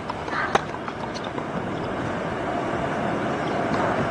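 A tennis serve: the racquet strikes the ball once with a sharp pop about half a second in, over a steady background hum that slowly grows louder.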